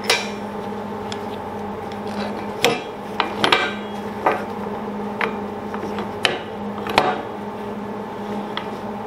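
Steel pieces clinking and knocking against a bench vise and a steel welding table as they are set in place: about ten sharp, irregular metal knocks. Under them runs the steady hum of a running welding machine.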